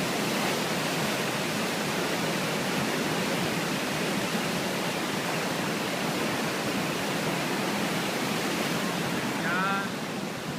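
Boulder Creek in flood: a steady rush of fast, high water, with the level dipping slightly near the end.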